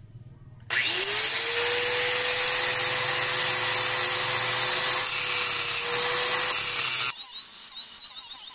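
Bosch GWS 060 angle grinder with a cut-off disc switched on about a second in: its motor whines up to speed, then runs steadily at no load with a loud hiss, the disc not yet in the steel. The sound cuts off suddenly near the end, leaving a much fainter sound with quick repeating chirps.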